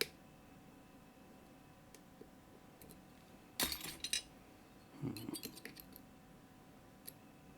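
Metal lock-picking tools clicking and clinking in the keyway of a Mottura CP6 dimple lock: a short cluster of sharp clicks about three and a half seconds in, a softer rattle around five seconds, and one more click near the end.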